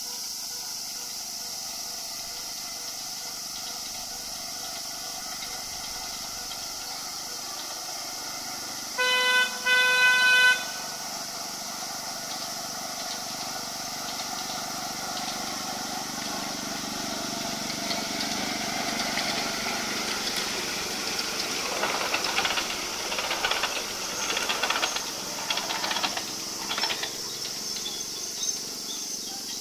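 A miniature ride-on park train sounds two short horn toots, then approaches and passes, its wheels clattering on the small-gauge track for several seconds near the end. A steady high insect drone runs underneath.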